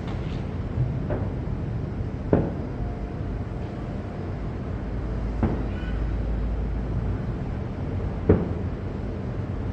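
Fireworks going off at a distance: several separate sharp bangs, the loudest about two seconds in and near the end, over a steady low rumble.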